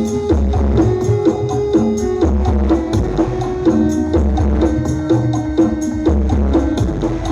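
Loud dance music with heavy bass, a repeating melody and steady percussion, played through Karti Jaya Audio's carnival 'horeg' sound system.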